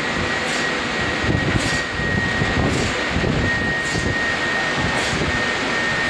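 Sawmill machinery running steadily as a log carriage rolls along its rails, with a thin steady high whine and a faint regular tick about once a second.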